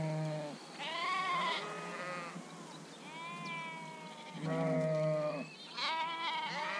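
Sheep bleating: about five wavering calls in a row, the longest about three seconds in.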